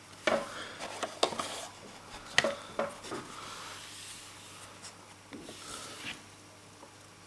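Handling noise: a few light knocks and clicks with some rubbing, mostly in the first three seconds and fainter later, as small objects are moved about by hand.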